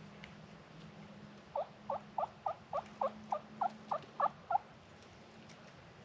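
A series of about eleven turkey yelps, evenly paced at roughly three a second, starting about a second and a half in and ending near the middle.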